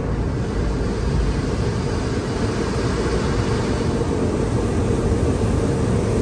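Automatic tunnel car wash heard from inside the car: a steady rushing noise of the wash equipment, with water pouring over the windshield.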